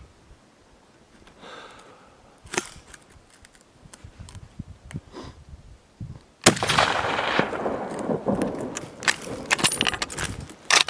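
A single rifle shot about two-thirds of the way in, taken at a bedded mule deer buck, followed by a few seconds of rolling noise and clicks.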